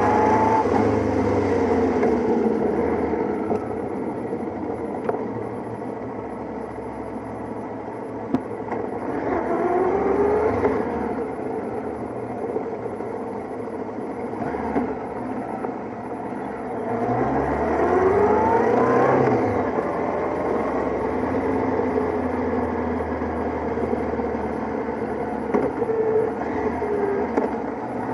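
Motorcycle engines running in a slow-moving group ride, rising in pitch as they accelerate twice, about ten seconds in and more loudly past halfway.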